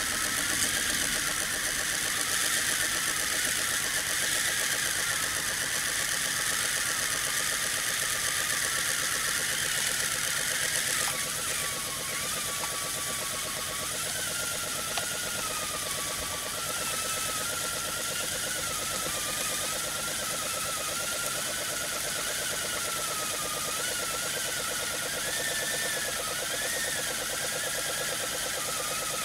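Brass Hero's steam engine (aeolipile) spinning on steam jetting from its bent copper pipes: a steady hiss of escaping steam with a wavering high tone over it and a fast, even pulsing beneath. The hiss softens a little about eleven seconds in.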